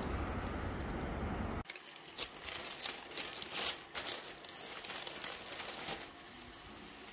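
A steady low rumble cuts off suddenly about one and a half seconds in, followed by irregular crinkling and rustling with small clicks, as of something being handled and crumpled.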